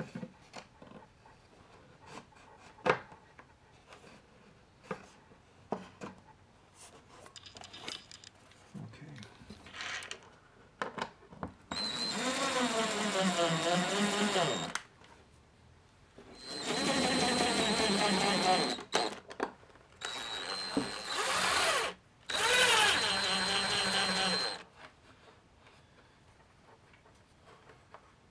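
Cordless electric screwdriver with a star (Torx) bit driving four trim screws into a wooden cover, in four runs of two to three seconds each with a high motor whine whose pitch wavers as each screw is driven. Before that, light clicks and knocks of the wooden trim being handled.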